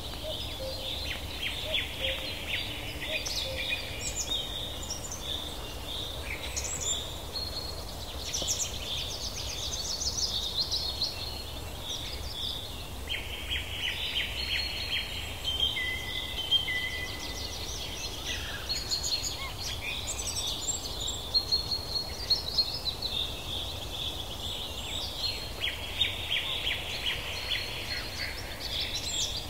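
Forest ambience of many birds chirping and trilling, calls overlapping and repeating throughout, over a steady low rumble.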